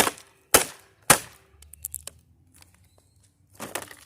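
A hammer striking a vacuum cleaner's housing around its electric motor: three sharp blows about half a second apart, then lighter clicks and a clatter of loose parts near the end.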